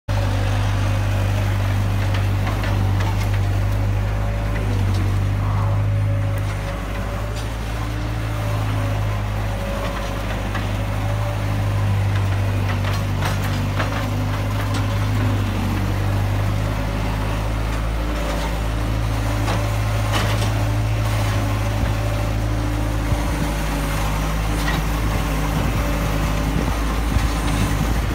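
Skid-steer loader engine running steadily, with occasional knocks and scrapes as its pallet forks pry up broken concrete sidewalk and dirt.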